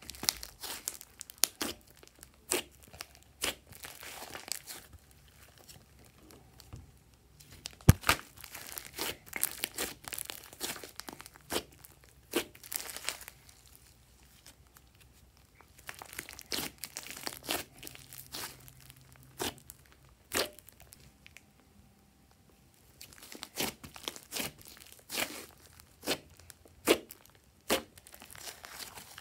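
Hands pressing, kneading and stretching a large lump of glossy slime: clusters of sharp crackling pops and clicks, with a few quieter pauses between them.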